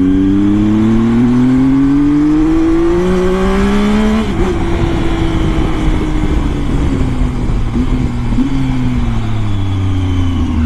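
Triumph Tiger motorcycle engine and exhaust under way. The pitch climbs steadily under throttle for about four seconds, drops suddenly as the throttle is rolled off, then sinks slowly while the bike slows, with a brief blip of throttle around eight seconds in.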